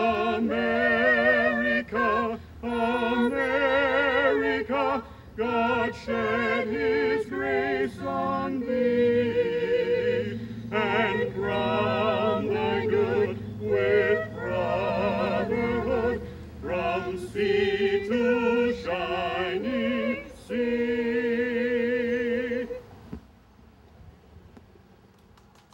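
A small vocal group of women and a man singing unaccompanied from song sheets, with vibrato. The song ends about 23 seconds in on a long held note.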